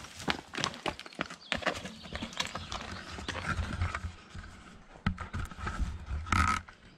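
Footsteps on a rocky, gravelly trail: irregular crunches and clacks of shoes on stones and loose grit, with a louder scuff about six seconds in.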